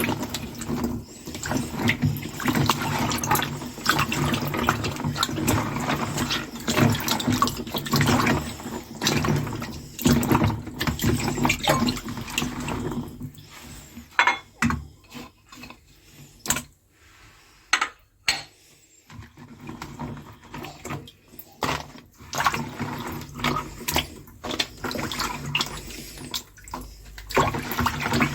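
Water splashing as dried black figs are washed by hand. It is busiest in the first half, then goes quieter for several seconds with a few sharp knocks, and picks up again near the end.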